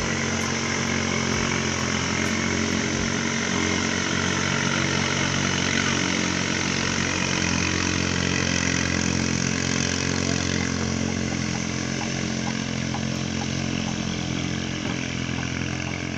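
Katinting longtail boat engine running steadily, its propeller shaft spinning under test; the note holds one steady pitch and eases slightly quieter over the last few seconds.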